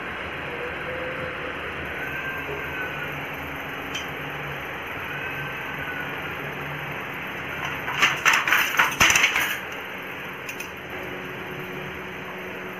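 Handloom at work: a loud burst of rapid clattering knocks from the shuttle and beater lasting about a second and a half, two-thirds of the way through, with a few single clicks before and after over a steady background hum.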